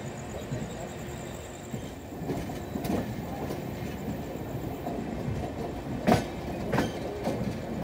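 Indian Railways express train running, its coach wheels clattering over rail joints and points, with a few sharp clanks, the loudest a little after six seconds.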